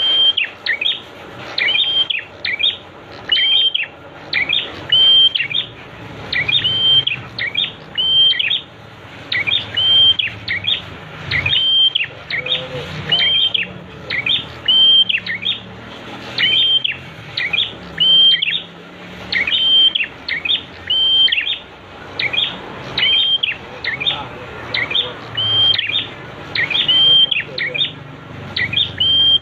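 Prinia (prenjak) repeating a short, high call over and over, the calls often coming in quick pairs.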